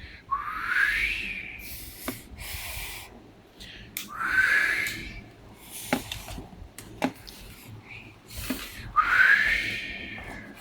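A person imitating the wind by blowing through the lips: three breathy whistles, each rising in pitch and then holding for about a second, with short airy puffs of breath between them.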